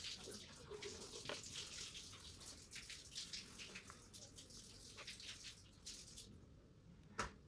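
Black gel pen nib scratching across paper in short strokes, a faint dry hiss. The scratching dies away about six seconds in, and a single sharp click follows near the end.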